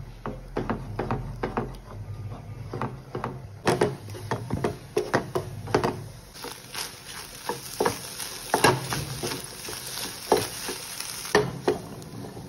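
Wooden spatula stirring and chopping scrambled eggs in a nonstick frying pan, with repeated scraping and sharp taps against the pan over the sizzle of frying. The sizzling hiss rises about four seconds in and drops away about a second before the end.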